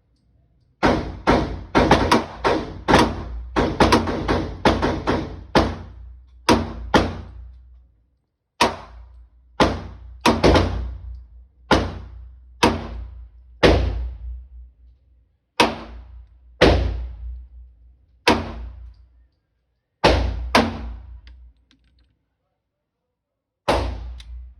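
Gunshots: a rapid string of shots, then slower single shots about a second apart, and one last shot near the end.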